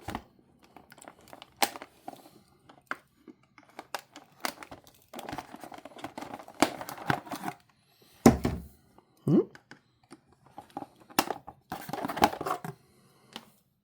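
Toy packaging being opened by hand: plastic and cardboard crinkling and tearing, with scattered clicks. A few louder knocks come about eight to nine seconds in.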